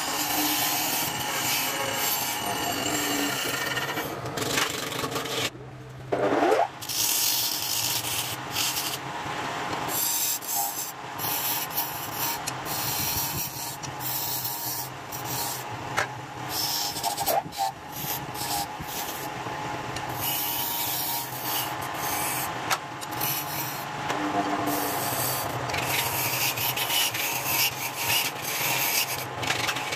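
A hand-held turning tool scraping against a wooden vase spinning on a lathe: a rasping hiss that breaks off again and again as the tool comes off the wood, over the lathe's steady low hum.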